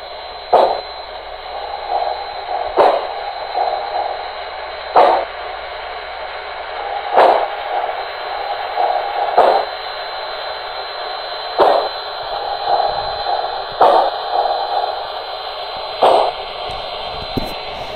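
Soundtraxx Econami ECO-200 sound decoder in an HO scale Santa Fe 4-8-4 steam locomotive model, playing slow steam exhaust chuffs through its small onboard speaker as the model runs. A sharp chuff comes about every two seconds with softer ones between, over a faint steady high whine.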